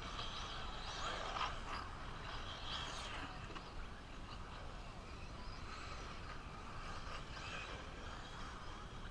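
1/8-scale electric RC truggies racing on a dirt track: a thin electric motor whine with tyre and dirt noise, swelling and fading as the cars pass, loudest about a second in and again near three seconds.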